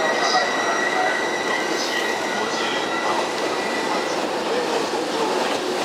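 Freight train of Koki container wagons hauled by an EH500 electric locomotive, rolling past with a steady rumble of wheels on rail. A thin high wheel squeal runs over it and fades out about four seconds in.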